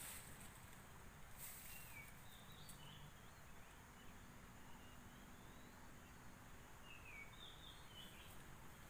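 Quiet outdoor ambience with a faint steady hiss, broken by a few brief, high bird chirps that slide down in pitch: a cluster about one and a half to three seconds in, and another around seven to eight seconds in.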